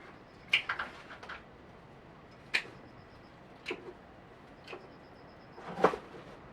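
Scattered sharp clicks and knocks at uneven intervals over a faint steady hiss: a quick cluster about half a second in, then single ones a second or so apart, with the loudest near the end.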